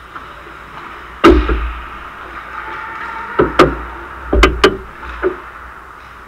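Ice hockey play at the goal: about six sharp cracks and thuds of puck, sticks and boards, the loudest about a second in, then two quick pairs and a last lighter one, over a faint steady rink hum.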